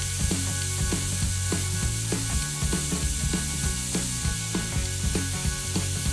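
Angle grinder running steadily while a drill bit is ground against its disc in a sheet-metal sharpening guide, with irregular sharp clicks about two to three times a second as the bit is moved and tapped in the guide.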